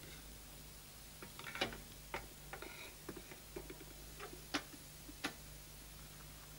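Irregular small metallic clicks and clinks as the firebox door and burner at the base of a model steam engine's vertical boiler are handled, about ten in all over a few seconds, over a faint steady low hum.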